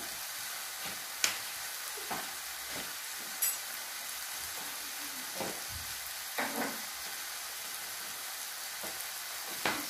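Onions and minced meat sizzling steadily in a frying pan, with a few brief pops or clicks along the way.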